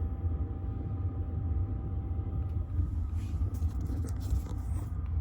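Strong wind making a continuous, uneven low rumble, with a few faint clicks about three to four and a half seconds in.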